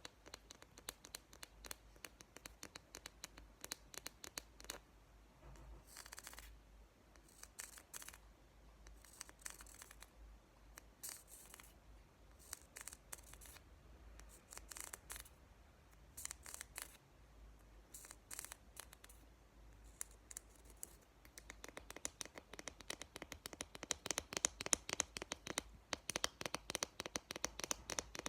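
ASMR tapping and scratching on product packaging: scattered sharp taps with a few short scratchy strokes, turning into a dense run of rapid tapping in the last several seconds.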